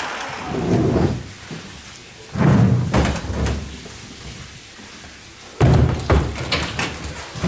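Three loud bouts of heavy banging: one about half a second in, one at about two and a half seconds, and one near six seconds. Each lasts about a second, with a quieter background in between.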